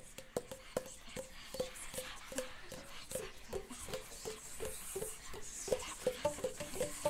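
Rhythmic percussive tapping, about two and a half taps a second, each with a short hollow note. The taps come faster and busier about halfway through.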